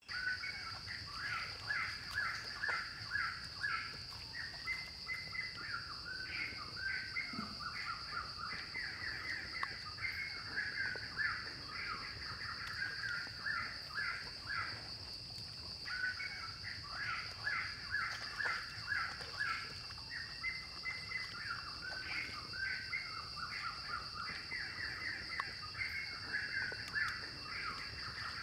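Forest ambience: many birds calling in a dense, quick, overlapping chatter, with a brief lull about halfway through, over a steady high-pitched hum.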